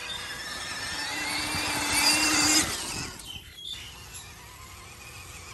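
Electric motor and gearbox of a radio-controlled scale truck whining under throttle, rising slightly in pitch and loudest about two seconds in, then dropping away sharply before three seconds.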